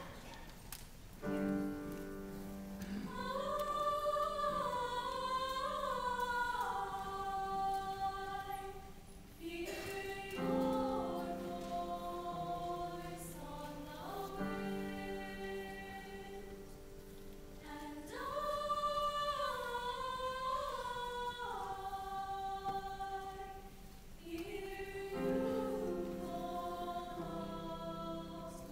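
Girls' choir singing slow, sustained chords in long phrases, with brief breaks between phrases and a melodic phrase that comes back about every fifteen seconds.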